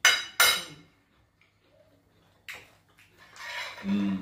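Metal spoons knocking against ceramic plates at a meal: two sharp clinks about half a second apart, then quieter clatter and eating sounds later on, with a short low hum near the end.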